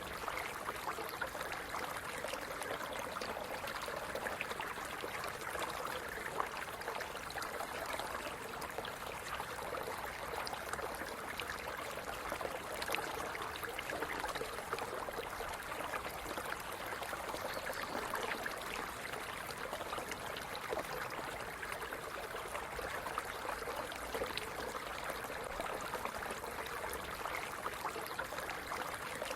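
A small stream running steadily over stones, a constant rush of flowing water with fine bubbling and splashing throughout.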